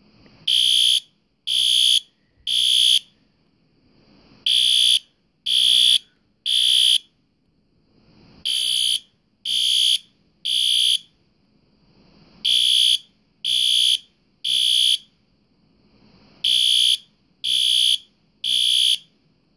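System Sensor SpectrAlert Advance PC2W ceiling-mount horn strobe sounding temporal code 3 on its low volume setting: five rounds of three half-second horn blasts, each round followed by a pause of about a second and a half. Temporal code 3 is the standard fire evacuation pattern; the horn is still pretty loud.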